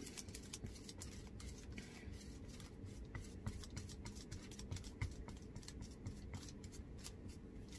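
Faint scratching and dabbing of a small paintbrush working sealer into the textured surface of an air-dry clay spoon rest, with many small irregular ticks.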